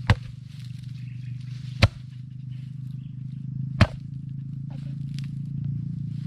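Three sharp chopping strikes about two seconds apart: a machete blade chopping into a fresh coconut. A steady low hum runs underneath.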